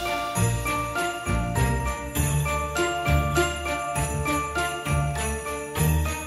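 Background Christmas music with jingle bells ringing over a bass line and a steady beat.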